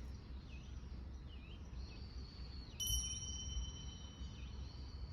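Small birds calling outdoors, a string of short high chirps that dip and glide in pitch, over a low outdoor rumble. About three seconds in, a single bell-like ding rings out clearly and fades over about two seconds.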